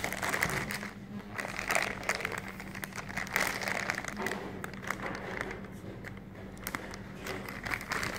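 Thin plastic shopping bag being handled and crinkled, with irregular crackling rustles throughout.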